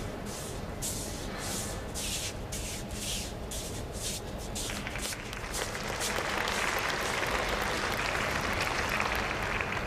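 Arena audience applauding: scattered claps at first, swelling into dense, steady applause about five seconds in.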